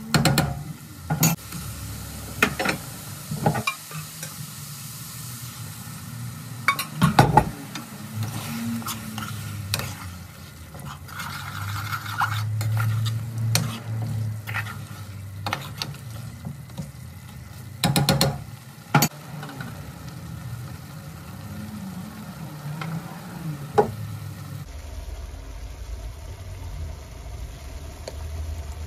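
A curry frying in a pan, sizzling, while a utensil stirs and scrapes through it with frequent sharp clinks against the pan. Near the end it switches abruptly to a steady low hum.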